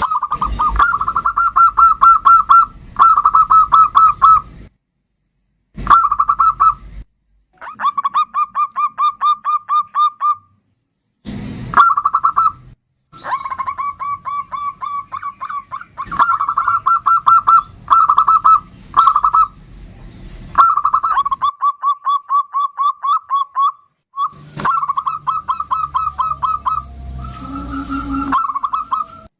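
Zebra dove (perkutut) singing a bodronoyo-type song: runs of quick, evenly repeated cooing notes, each run lasting a second or several, broken by short silences.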